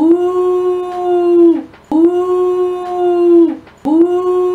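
A woman howling like a wolf or dog: one held 'aooo' note that drops in pitch at its end, about a second and a half long, repeated identically about every two seconds, three times.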